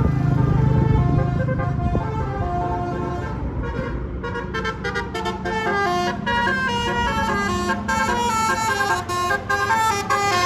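A bus engine running with a low rumble, then from about four seconds in a telolet basuri horn playing a quick melody of short notes stepping up and down.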